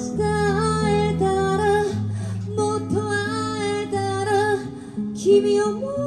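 Live acoustic band music: acoustic guitar playing chords under a wavering lead melody line.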